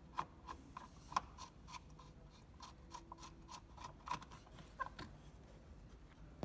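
Screwdriver undoing the Phillips head screw that holds a small power outlet (fuse) box, giving a run of faint, evenly spaced clicks, about three a second.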